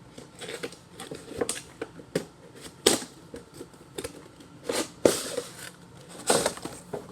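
A doll's box being opened and handled to take the doll out: irregular clicks, taps and rustles, the sharpest about three and five seconds in.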